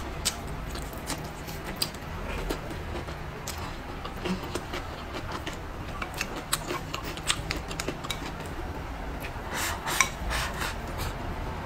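Eating at close range: irregular crisp crunches and wet clicks of chewing green peppers and rice, with wooden chopsticks tapping and scraping the bowl. The sharpest click comes about ten seconds in.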